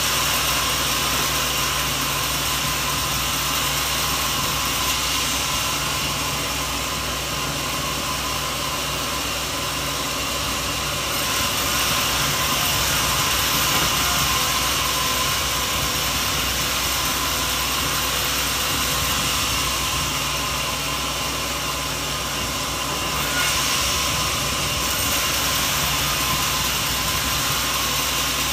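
Sawmill machinery running steadily: a low engine hum under a dense hiss, swelling a little about halfway through and again near the end.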